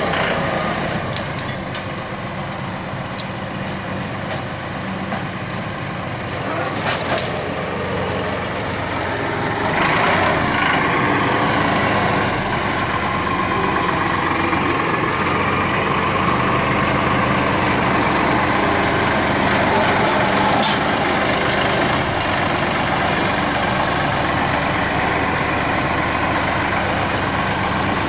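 A vehicle engine running steadily with a low drone, growing louder about ten seconds in.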